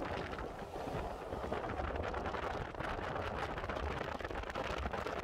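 Steady wind rushing over the microphone, with the road noise and low rumble of a 2007 Ford Ranger driving on pavement.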